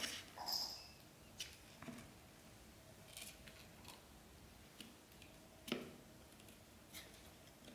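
Faint, scattered clicks and taps of a kitten pawing and mouthing a plastic tower ball-track toy, about eight in all, with the loudest nearly six seconds in.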